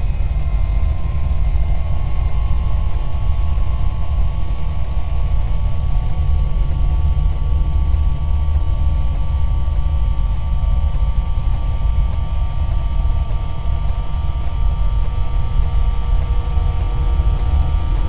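Dark horror ambience drone: a steady, deep rumble with faint, thin high tones held above it.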